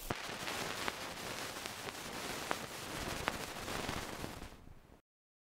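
Surface noise of an old disc recording: a steady hiss with a few sharp clicks and crackles, no voices, fading out about four and a half seconds in and stopping dead about a second later.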